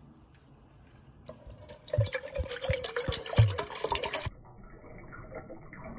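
Water poured from a green glass bottle into the stainless steel pot of a GSI percolator, splashing loudly with a few low glugs. About four seconds in the sound drops abruptly to a quieter, duller pour.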